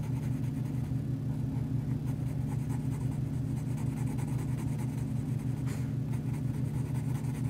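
Red colored pencil scratching on drawing paper as a stripe is colored in, over a steady low hum.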